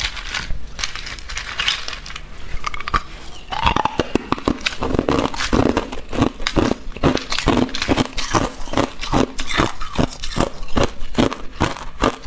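Clear ice cubes being bitten and chewed close to the microphone: sharp cracking crunches. They come sparsely at first, then about three a second from a few seconds in.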